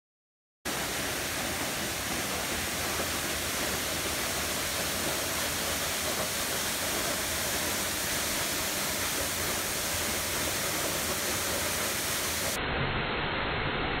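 Steinsdalsfossen waterfall, a curtain of falling water heard from right behind the fall: a loud, steady, even rush that cuts in suddenly under a second in.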